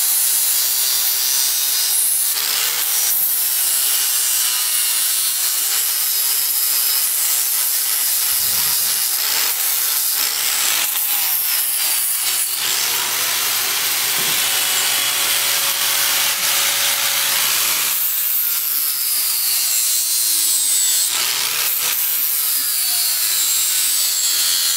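Electric angle grinder with an abrasive disc grinding the edge of a steel horseshoe, bevelling it: a steady harsh grinding rasp over the motor's whine. The whine sags and picks up again several times as the disc is pressed into the metal and eased off.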